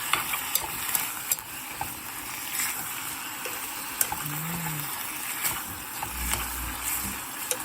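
Pork cooking in a pan of hot oil: a steady sizzle with scattered small pops and clicks.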